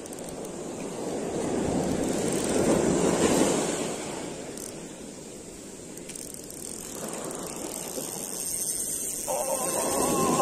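Surf washing up a sandy beach, with the noise of the water swelling twice: once about three seconds in and again near the end.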